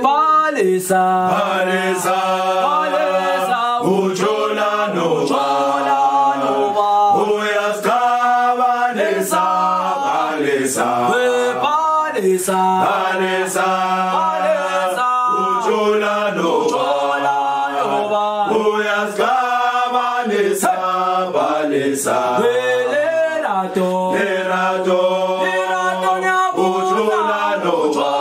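Background music: a group of voices chanting a cappella in harmony, in the style of South African gwijo singing.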